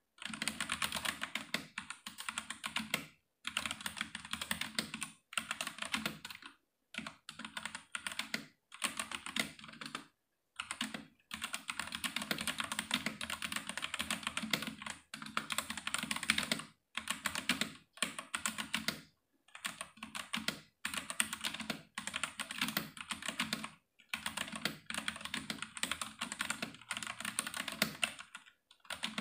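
Typing on a stock Redragon K631 Castor 65% mechanical keyboard with Huano Red linear switches and a plastic case and plate. The keystrokes come in quick runs of rapid clacks, broken every second or two by brief pauses.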